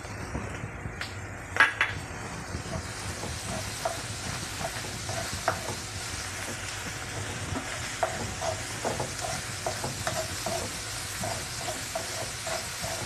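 Onions, chillies, ginger and garlic sizzling in coconut oil in a metal kadai, while a spatula stirs and scrapes the pan in quick, regular strokes. A sharp clink about a second and a half in is the loudest sound, and the sizzle and stirring pick up a few seconds in.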